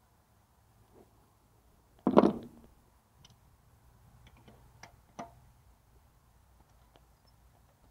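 Hand tools and a spark plug being handled over the engine during a spark plug change: one loud knock about two seconds in, then a few light, scattered clicks of metal parts.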